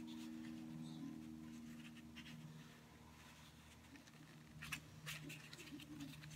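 Faint rustling and light scratching of a sheer ribbon bow being handled and straightened on a card, with a few sharper taps about five seconds in, over a low steady hum.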